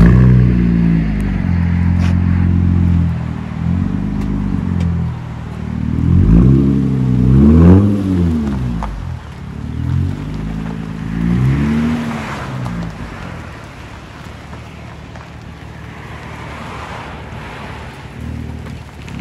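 2006 Acura TL's V6 running through a 3-inch straight-piped exhaust with no muffler, revved in a series of blips that rise and fall, the loudest pair about seven to eight seconds in. The engine comes in loud right at the start and settles to a steady, deep idle for the last several seconds.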